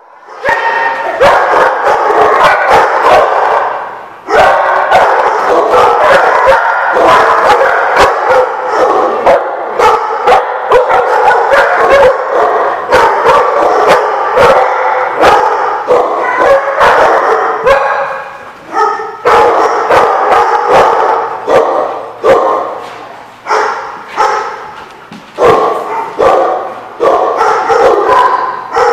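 A group of dogs barking almost nonstop, many barks overlapping, with brief lulls about four seconds in and again near the middle.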